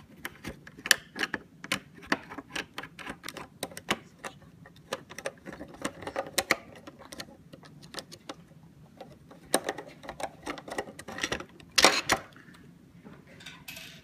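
Hand screwdriver unscrewing the mounting screws of a plastic wall switch plate: a run of irregular small clicks and scrapes of metal on screw heads and plastic, with a louder clatter about twelve seconds in.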